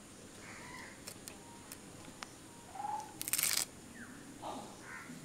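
A blade slicing through banana flower florets: a few light clicks, then one short crisp cutting noise about three seconds in. Faint bird calls sound in the background, including a brief chirp just before the cut.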